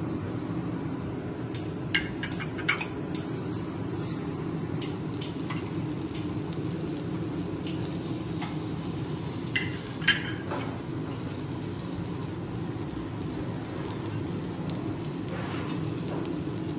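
Chef's knife and metal spatula clinking and scraping on a steel teppanyaki griddle while cutting broccoli, a few sharp clinks about two seconds in and again about ten seconds in. A steady low rumbling noise runs underneath.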